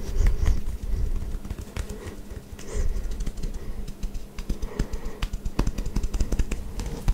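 Hands rubbing and scratching over buzz-cut hair, a dense crackly scratching made of many small sharp clicks, with low muffled thumps as the palms press and slide.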